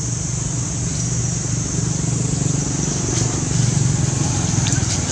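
Low, steady rumble of a motor vehicle engine running close by, swelling slightly about three to four seconds in, with a steady high-pitched insect drone above it.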